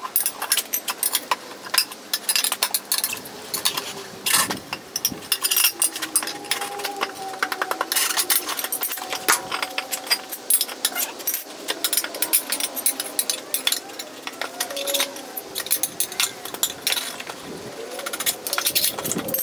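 Metal tools clinking and knocking against an alloy wheel rim as a tyre is worked onto it by hand, over background music.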